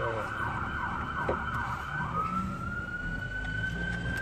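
Emergency vehicle sirens sounding at a busy intersection. A fast, repeating yelp changes about halfway through to a slow rising wail.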